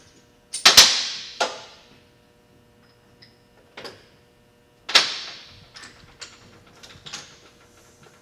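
Several sharp knocks with short ringing tails in a reverberant room. The two loudest come about a second in and about five seconds in, with a few lighter ticks between and after.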